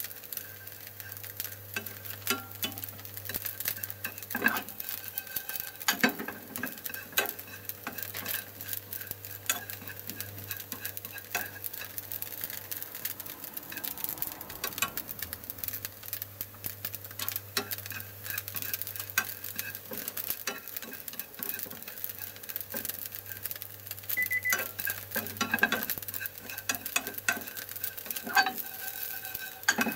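Dried baby sardines (chirimen jako) being pan-toasted in a nonstick frying pan: a light sizzle and crackle, with frequent irregular clicks and scrapes of wooden chopsticks stirring against the pan.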